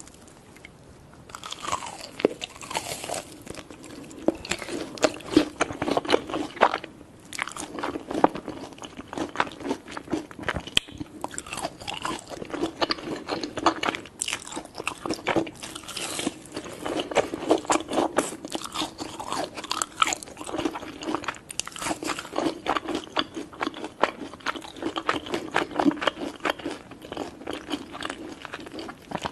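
Close-up biting and chewing of crunchy food: dense, irregular crackling crunches that start about a second in and go on throughout.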